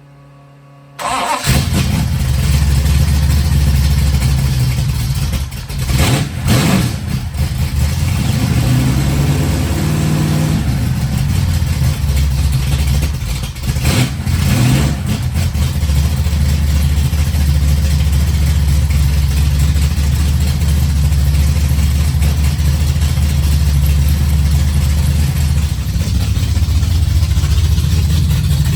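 1968 Plymouth Barracuda drag car's V8 starting about a second in and running through its headers, freshly fitted collector extensions and mufflers. It is revved a few times in the first fifteen seconds, then idles steadily.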